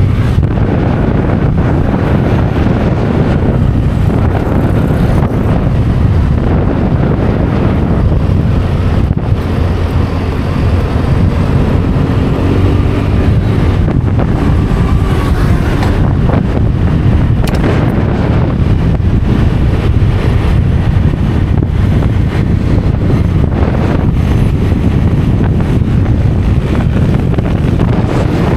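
Steady wind rush buffeting the microphone over the running engine and road noise of a motor scooter riding along at speed.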